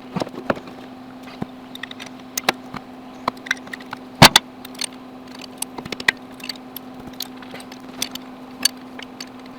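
Metal hand tools clicking and clinking against a backhoe engine while a bracket is taken off, with one loud knock about four seconds in. A steady faint hum runs underneath.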